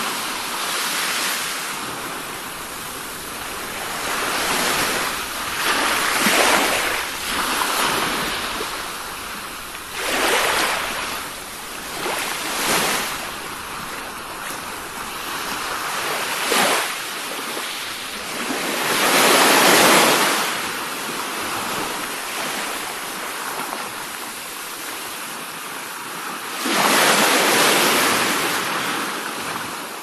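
Sea surf: waves rolling in and washing back, the sound swelling and fading every few seconds, with the biggest surges about two-thirds of the way through and near the end.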